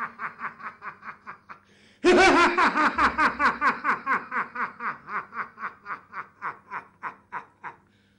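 A man's long theatrical villain's laugh in rapid ha-ha-ha pulses. A first bout fades out, and a second, louder one starts about two seconds in and tapers off near the end.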